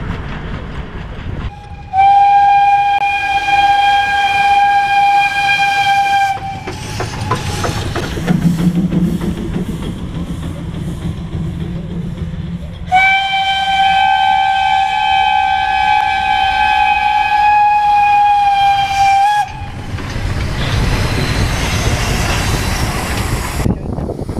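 Steam locomotive whistle blown in two long, steady blasts, the first about four seconds and the second about six, with low rumbling noise between and after them.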